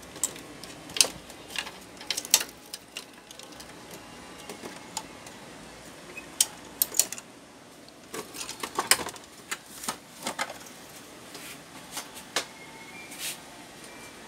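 Scattered sharp clicks and knocks of hard plastic parts as a Canon PIXMA MP287 printer's scanner unit is worked loose and lifted off its plastic chassis.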